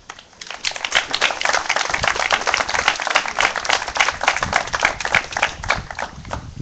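A small crowd applauding: a dense patter of hand claps that starts about half a second in, builds quickly, and thins out near the end.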